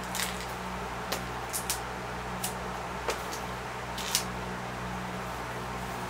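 Twine ends being cut off the wrapping of a hand-tied broom: a series of short, sharp snips at uneven intervals, the loudest about four seconds in, over a steady low hum.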